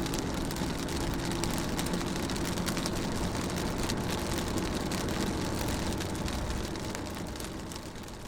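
Rain falling on a car window: a steady hiss dotted with many small drop ticks over a low rumble, fading out near the end.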